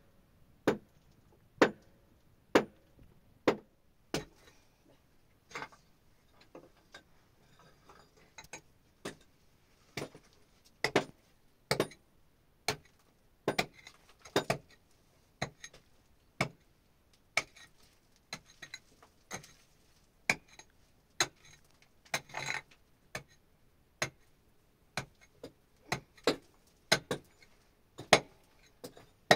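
Sharp knocks, as of something hard being struck over and over, about once a second, with a few softer, sparser ones a few seconds in.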